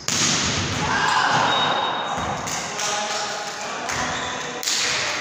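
Volleyball spiked at the net with a sharp smack, followed by players' shouts ringing around a large gym; another sharp hit comes near the end.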